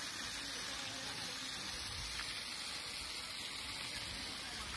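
A steady hiss of outdoor background noise, even throughout with no distinct events.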